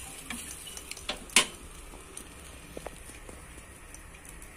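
Beaten eggs sizzling steadily as they fry in an oiled nonstick pan, with a few sharp clicks of chopsticks against the pan, the loudest about a second and a half in.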